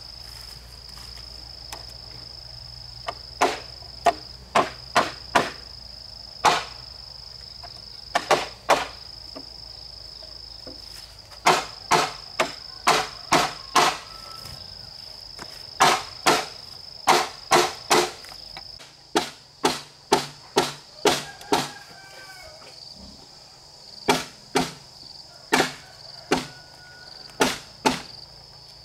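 Sharp tool blows on wood, in runs of several strikes about two a second with short pauses between the runs. A steady high-pitched insect drone runs underneath.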